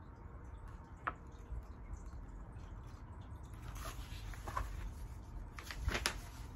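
Faint handling of a Little Golden Book picture book: soft rustles and small taps as it is lowered and its pages turned, over a low steady hum.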